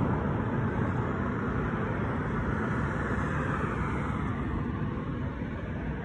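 Road traffic: a steady rush of passing cars' engines and tyres, swelling slightly about halfway through as a car goes by.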